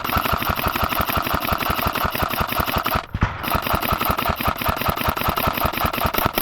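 Airsoft rifle firing on full auto in two long bursts of rapid shots, with a brief pause about three seconds in.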